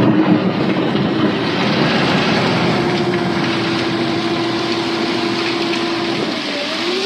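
Backhoe loader's diesel engine running steadily under work, revving up in pitch near the end.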